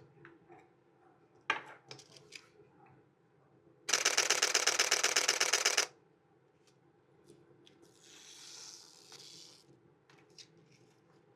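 Nikon Z6III shutter firing in a rapid continuous burst of many evenly spaced clicks, lasting about two seconds. Scattered single handling clicks come before it, and a soft rustle follows.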